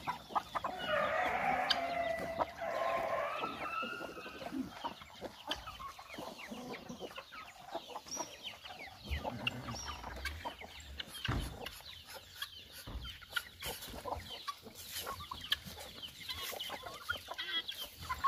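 A rooster crows once, the loudest sound, lasting about three seconds near the start. A flock of chickens then clucks and chirps with many short calls.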